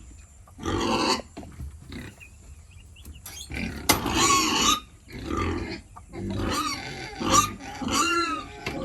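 Pigs making a series of rough calls in about five short bursts, the longest about a second long near the middle.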